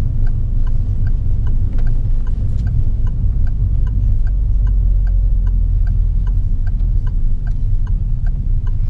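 Car's turn-signal indicator ticking evenly, about three ticks a second, over the steady low rumble of the engine and road noise inside the cabin.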